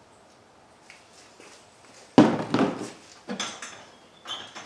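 A sudden heavy metal clunk about two seconds in, followed by a few lighter clanks and rattles, as the Subaru 2.5-litre engine hanging from its hoist chain is worked and pried loose from the transmission.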